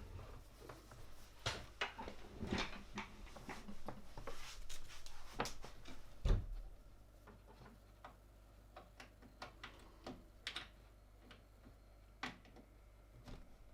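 Irregular clicks and clacks from a Gamakay LK67 mechanical keyboard with Gateron red linear switches. They come thick for the first half and then thin out to single clicks.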